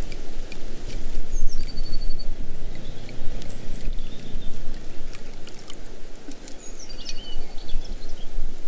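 Birch sap poured from a swing-top glass bottle into wooden cups, over a steady low rushing noise, with a few light clicks from handling. A small bird sings the same short trilling phrase twice, about a second and a half in and again near the end.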